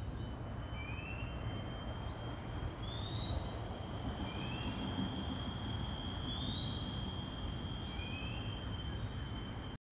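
Night outdoor ambience: steady high-pitched insect trilling over a low steady rumble of city traffic, with short rising chirps every second or two.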